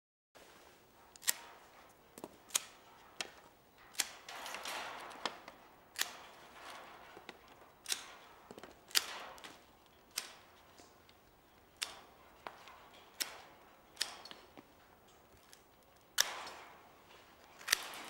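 Hand pruning shears snipping through grapevine canes, about fifteen sharp snips spaced irregularly, with rustling of the cut wood between cuts. This is the yearly pruning of the fruiting canes back to two buds.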